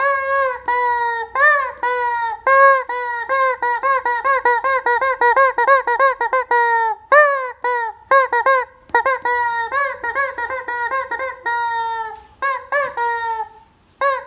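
Rubber squeeze chicken toy honking over and over as it is squeezed, a rapid run of squeaky honks at up to about four a second, slowing and breaking off shortly before the end.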